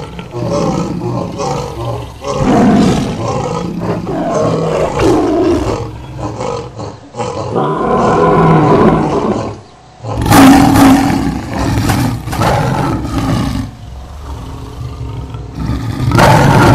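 Lions roaring, a lioness among them: a run of loud, deep roars, with a brief pause about ten seconds in.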